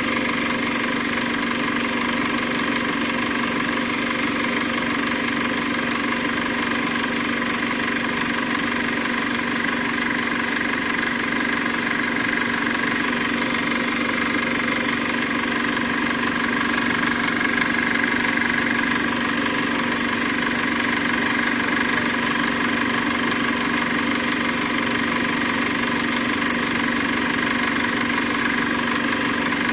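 A steady machine-like hum and whirr, unchanging throughout.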